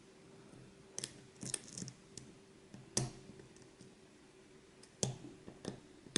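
Lock pick and tension wrench working the spool pins of an ASSA 600 lock cylinder: scattered small, sharp metallic clicks and ticks, roughly one a second, as pins are lifted and set. A faint steady hum runs underneath.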